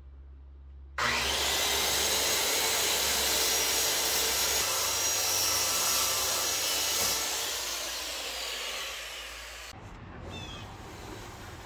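Handheld circular saw starting about a second in and ripping a thin sheet of 1/8-inch cabinet plywood, a steady loud cutting noise that tapers off over the last few seconds of the cut.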